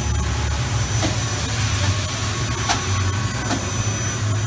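OKK VM-5 II vertical machining center with its Z axis being run: a steady low machine hum that grows and eases in strength, with a few faint clicks.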